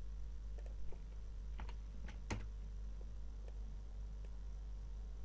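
A handful of separate computer keyboard and mouse clicks, the loudest a little past two seconds in, over a low steady hum.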